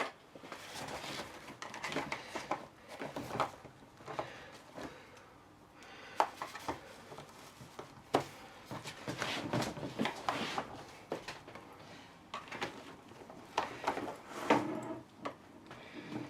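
Irregular clicks, knocks and scrapes of hand tools working on a jammed telescopic suitcase handle, with no steady rhythm.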